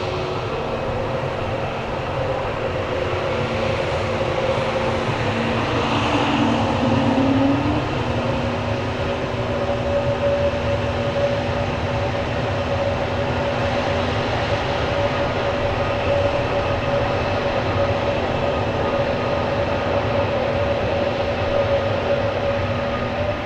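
Airbus A320neo's Pratt & Whitney geared turbofan engines running steadily: a constant rumble with several held whining tones, and a short rising tone about six seconds in.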